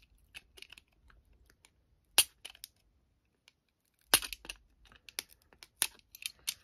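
Snap-off utility knife blade cutting and scraping into the edge of a thick trading card, heard as scattered small clicks and scratches, with two sharper clicks about two and four seconds in.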